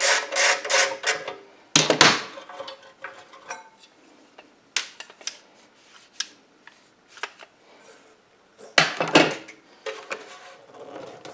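Ratchet clicking as the bolts holding a small engine's recoil starter are backed out, then metal clinks and clatter as the pressed-steel recoil housing is lifted off and handled. There is a quick run of clicks at the start, scattered lighter clinks, and a louder clatter near the end.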